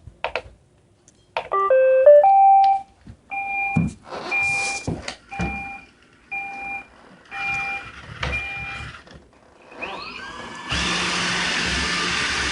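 iRobot Roomba 870 robot vacuum starting a cleaning run: a short rising electronic tune, then six two-tone beeps about once a second. About ten seconds in, a rising whine as its motors spin up leads into a steady vacuum-and-brush running noise.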